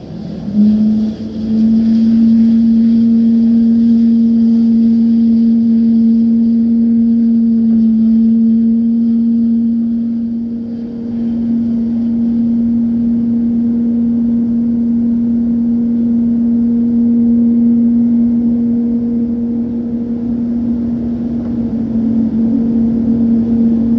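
Steady, loud low mechanical hum: a motor or engine running at a constant pitch, with a fainter high whine that fades out over the first ten seconds or so.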